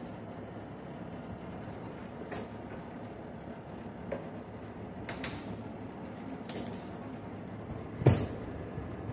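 Steady low hum at an open oven, with a few light clicks and one loud knock about eight seconds in, from the roasting dishes being handled on the metal oven rack.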